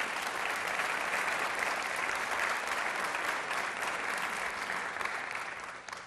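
Audience applauding: dense, steady clapping that dies away near the end.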